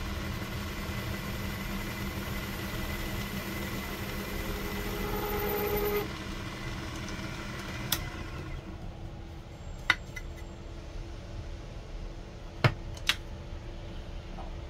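Proxxon mini lathe running with a steady motor hum while an HSS tool chamfers a 304 stainless steel part. A brief whining tone joins just before the machine stops, about six seconds in. Then come a few sharp clicks and knocks.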